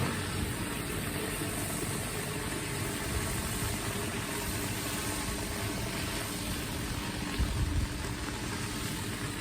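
Pressure washer running steadily: an engine drone under an even hiss, with a brief low bump about seven and a half seconds in.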